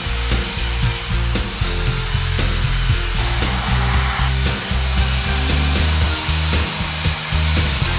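Background music with a steady beat over the steady high whir of a Dyson DC31 handheld vacuum cleaner running as its brush tool is passed along books on a shelf.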